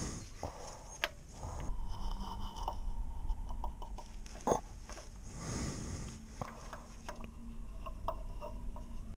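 Scattered scrapes and clicks of a fabric strap wrench being worked around the oil filter, with the strap rubbing against metal, and one sharper scrape about four and a half seconds in.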